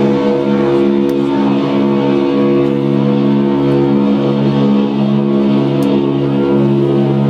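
Live band music from amplified guitar and keyboard holding steady, sustained chords, with no drum beat.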